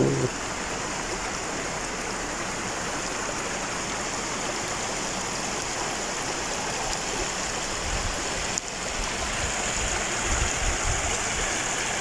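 Stream water rushing and splashing over rocks in a small cascade, a steady rush.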